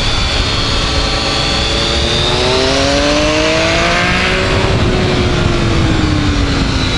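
Triumph Speed Triple's three-cylinder engine under way, with heavy wind rush on the microphone. The revs climb for about two seconds on the corner exit, then slowly fall away near the end.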